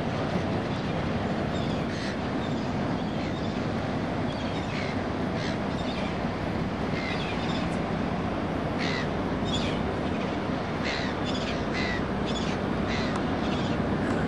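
A boat's engine rumbles steadily under constant wind and water noise while moving across the harbour. Short, high bird calls are scattered over it, coming more often in the second half.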